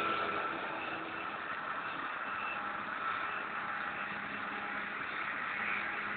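A Claas self-propelled forage harvester and a tractor pulling a silage trailer at work chopping grass. A steady, unbroken engine drone with a faint constant hum.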